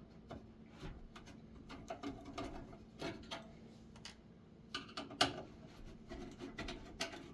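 Light metal clicks and taps of a screwdriver backing out the power supply's mounting screws from a computer case, scattered and irregular, with a sharper click about five seconds in.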